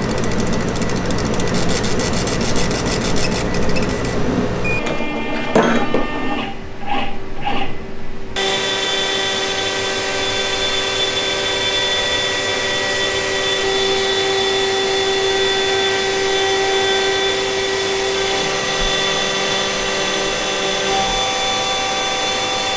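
A laser engraver runs with a low hum and rapid ticking from its gantry motors and fan. About 8 s in, the sound changes to a CNC router spindle whining steadily as it mills wooden cutting-board blanks.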